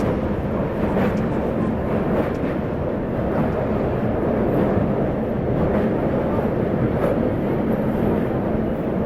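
Steady rumble of a moving vehicle, level throughout, with a few faint clicks.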